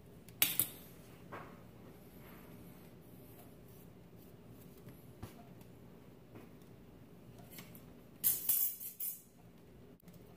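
Brief crisp handling noises from small parts being worked by hand: a sharp click about half a second in, a softer one a second later, and a short run of crackling clicks near the end, over a faint steady hum.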